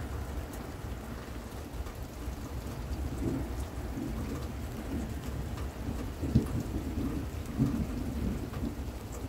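Steady rain with thunder rumbling low, building about three seconds in and loudest twice in the second half.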